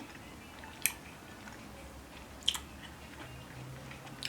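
A person chewing a soft gummy candy, with two sharp clicks about a second in and midway through.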